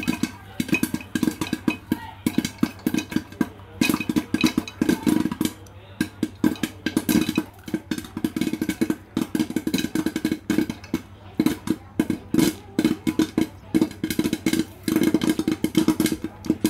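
Popcorn kernels popping inside a closed aluminium pressure cooker, its rubber gasket and whistle removed: a rapid, irregular string of sharp pops knocking against the metal lid and pot, with the corn popping at full rate.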